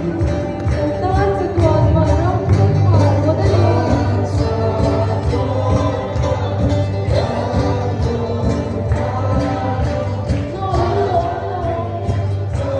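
Live praise-and-worship music in a large church hall: a congregation sings along with a lead singer on a microphone, backed by an amplified electric guitar and a steady beat.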